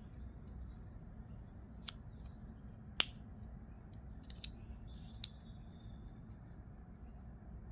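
Scattered light metallic clicks and taps as the small parts of a Winterblade M-FIRE folding knife (blade, washers, bearings) are handled and fitted together during reassembly, one sharper click about three seconds in.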